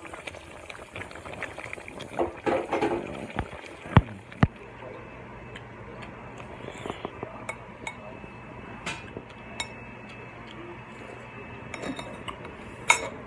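Plates and eating utensils clinking and knocking, with a sharp knock about four seconds in and another near the end.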